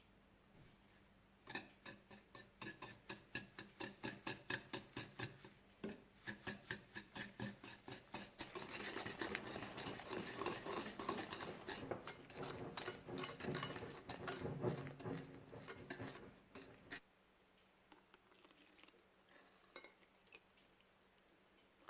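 Ingredients being mixed by hand in a bowl: quick, regular strokes of a utensil clicking against the bowl, about three a second, turn into denser, continuous stirring and scraping that stops about 17 seconds in.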